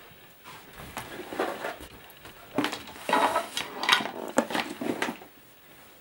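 A person sitting down at a desk and settling in: irregular knocks, rustles and a few short squeaks, busiest in the middle and dying away about a second before the end.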